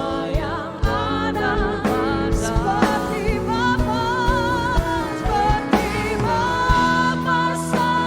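Christian worship song played by a band: a sung melody with vibrato over a steady bass and a regular drum beat.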